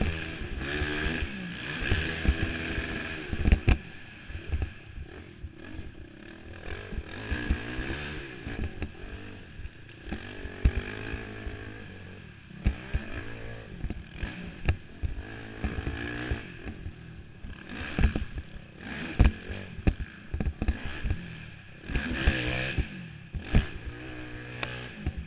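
Honda TRX450R quad's single-cylinder four-stroke engine revving up and down hard as it races round a dirt track, with repeated sharp knocks and clatter, heard from the rider's helmet.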